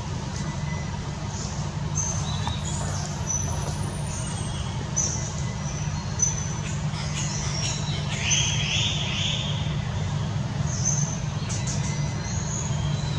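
Birds chirping in short high calls, with a brief louder burst of chirping about eight seconds in, over a steady low rumble.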